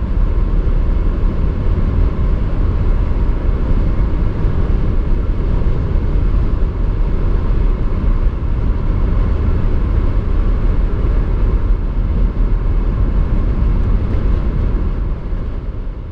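Cabin noise of a Hyundai ix35 Fuel Cell driving at about 150–160 km/h, near its top speed: a steady low rumble and hiss of wind and tyres, with no combustion engine note from the electric drive. The sound fades away near the end.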